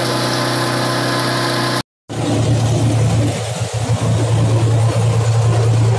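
Paddy straw grinder running with a loud, steady hum. It cuts out briefly about two seconds in, then the grinder runs on while straw is fed into it, its sound wavering irregularly.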